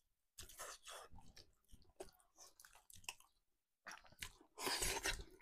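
A person chewing and biting food close to the microphone, in scattered short mouth sounds, with a louder cluster about four and a half seconds in.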